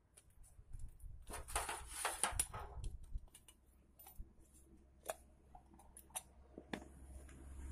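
Handling noise of a small motorcycle carburetor being turned over and worked in the hands: a burst of metal scraping and rustling about a second in, then scattered small clicks and taps.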